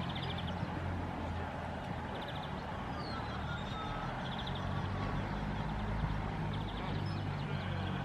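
European greenfinch giving short, rapid trilled calls, four of them spaced a second or more apart, over a low steady hum and background din.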